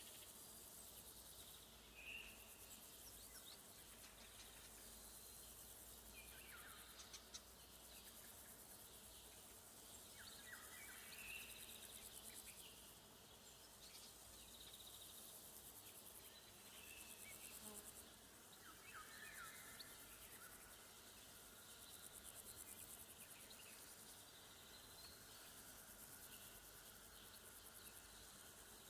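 Crickets trilling continuously, a faint high-pitched buzz of rapid pulses, with a few brief bird calls scattered through.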